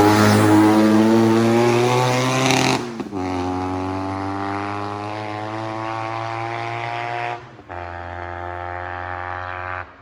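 Supercharged BMW flat-twin engine in a Citroën 2CV pulling hard under acceleration, its pitch rising. The sound breaks off abruptly twice, about 3 and 7.5 seconds in, and each time the engine picks up again more quietly.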